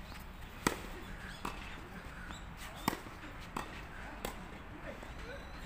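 Tennis balls being struck by rackets and bouncing during a volley rally: five sharp pops spread over about four seconds, the first and third loudest.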